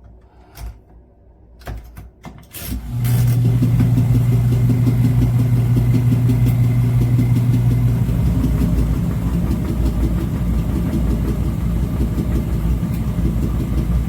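Portable mini washing machine clicking a few times, then its motor starting up about three seconds in and running with a loud, steady low hum that becomes rougher and more rattly partway through.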